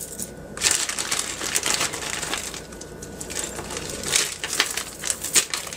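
Costume jewelry (metal chains, beads and baubles) clinking and rattling as a hand rummages through a tangled pile, a dense run of small clicks starting about half a second in, with a brief pause near the middle.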